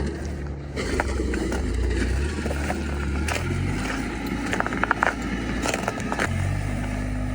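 Bobcat S76 skid steer's diesel engine running, its note changing about three and a half seconds in and again near the end, with scattered clicks and knocks in between.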